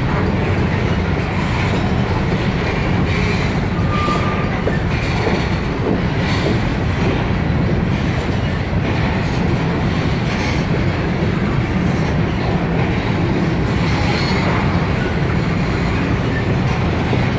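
A freight train of covered hopper cars rolls past at close range, making a steady rumble of steel wheels on rail. About four seconds in there is a brief high squeal.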